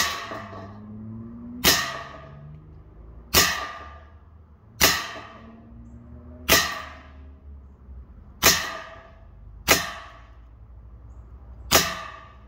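Eight shots from a .25 calibre semi-auto PCP air pistol, fired about every one and a half to two seconds. Each is a sharp crack as a pellet punches through a sheet-metal baking pan, followed by a short metallic ring.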